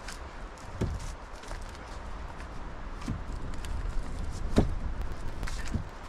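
Pine poles knocking against wood as they are handled beside a lean-to roof, with footsteps on the forest floor. There are four or so separate knocks, the loudest about three quarters of the way in.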